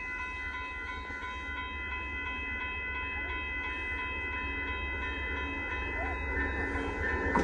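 Amtrak Texas Eagle passenger train approaching, its rumble growing steadily louder. A grade-crossing signal bell rings with a steady, high, pulsing tone throughout.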